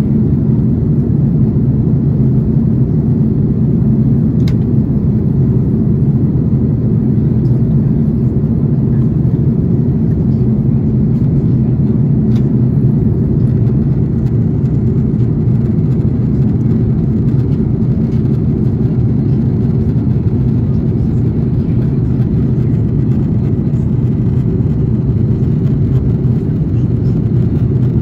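Steady low rumble of engine and airflow noise inside the cabin of an Airbus A330-300 in flight, heard from a window seat over the wing.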